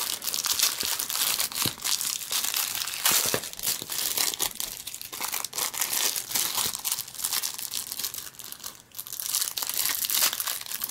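Thin clear plastic wrapping crinkling and crackling as it is peeled and pulled open by hand from a stack of paper bills, in an uneven run of fine crackles with brief pauses.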